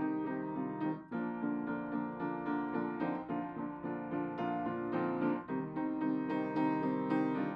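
Piano music, a flowing run of overlapping notes, with brief breaks about a second in and again about five seconds in.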